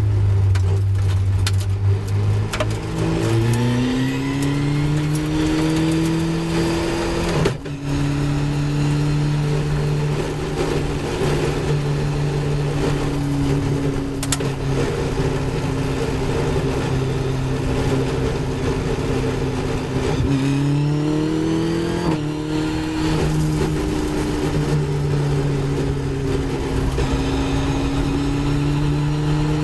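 Caterham 420R's 2.0-litre Ford Duratec four-cylinder engine under racing load, heard from the open cockpit. It climbs in pitch as the car accelerates out of a slow corner, breaks for a quick upshift about seven seconds in, then runs at high, fairly steady revs. Around twenty seconds in the revs dip briefly and pick up again.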